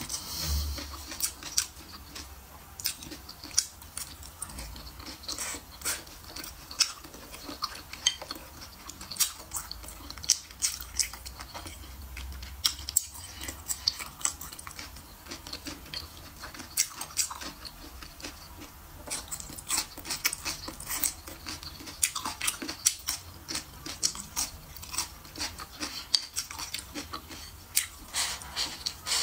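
Close-miked chewing of a person eating red pepper strips, meat and noodles: irregular short mouth clicks, several a second, with an occasional tap of chopsticks on the plate.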